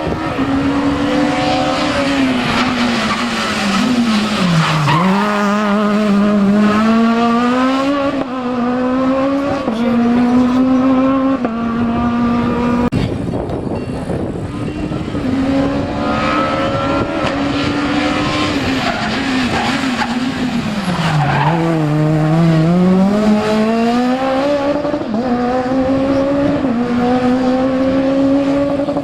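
Rally car engine at full racing load, its pitch climbing in steps through the gears and dropping sharply twice, about five seconds in and again a little past twenty seconds, as it brakes and downshifts for corners before accelerating hard again.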